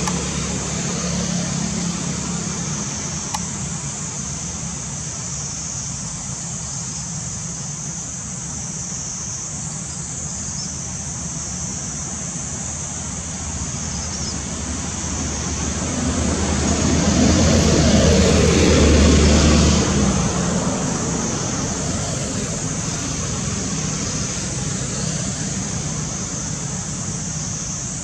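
Steady background of distant road traffic. A motor vehicle passes about two-thirds of the way through, swelling louder and then fading.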